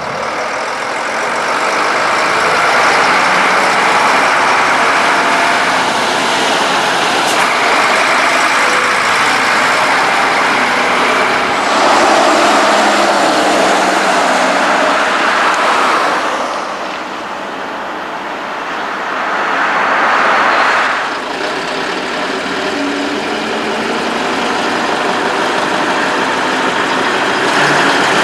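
Heavy tractor-trailer trucks driving past on a highway, one after another. The engine and tyre noise rises and falls as each one passes.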